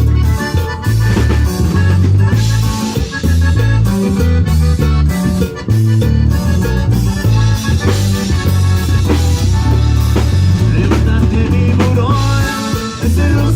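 A live Latin band playing an instrumental passage: a drum kit keeps a steady beat under a strong, rhythmic bass line, with a melody instrument on top.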